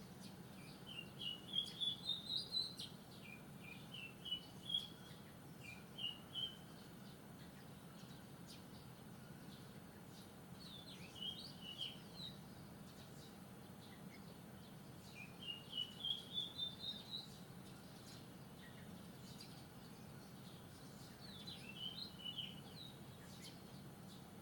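Wild songbird singing: runs of short, quick notes climbing in pitch, repeated with pauses and a few scattered single notes between, over a steady low background hum.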